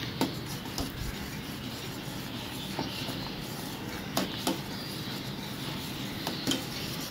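Steel spoon stirring and scraping in a stainless steel pot of thickening finger millet porridge, with several light clinks of the spoon against the pot.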